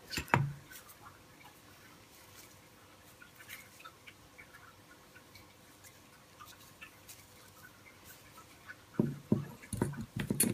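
Light clicks and knocks of a Suzuki SV650 front brake caliper and its metal-backed pads being handled on a table. A couple of knocks at the start, faint scattered ticks, then a cluster of clicks and knocks near the end as the pads are fitted into the caliper.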